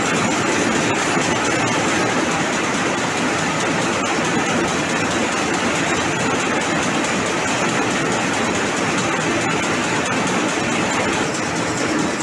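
High-speed rapier loom with a jacquard head running at full speed: a loud, steady mechanical clatter that does not let up.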